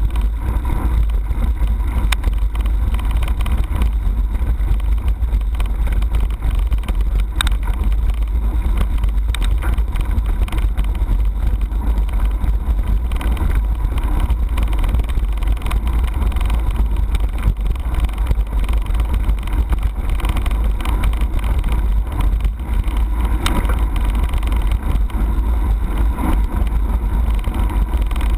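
Mountain bike riding a gravel dirt track, heard through a handlebar-mounted camera: a steady, loud low rumble of wind buffeting and road vibration, with frequent small clicks and rattles as the tyres roll over stones.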